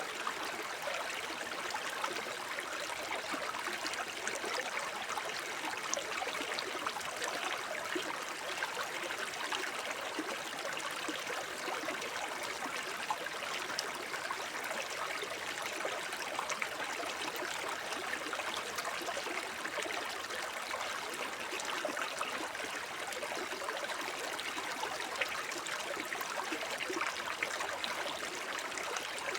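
A shallow forest brook babbling and trickling steadily over stones, an even rush of water flecked with small splashes and gurgles.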